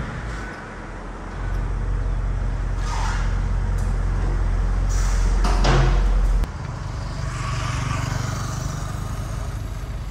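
Audi RS6 Avant's twin-turbo V8 running at low revs as the car creeps forward, a steady deep rumble with a couple of brief sharp sounds around the middle. About six and a half seconds in it drops suddenly to a quieter, steady engine rumble.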